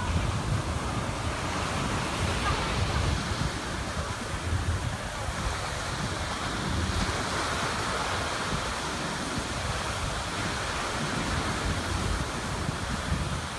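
Small surf waves washing up on the shore, with wind buffeting the microphone.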